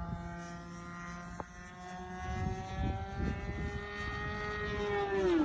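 The 20cc two-stroke gasoline engine of a homemade RC profile plane in flight, a steady buzzing drone that creeps slightly up in pitch, then drops sharply in pitch near the end.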